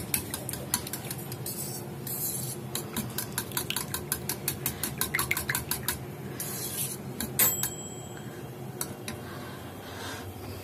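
A metal fork beating flour batter in a steel bowl: quick clinks of the fork against the bowl's side, several a second. About seven seconds in comes a sharper metallic clink that rings briefly, and after it the clinks thin out.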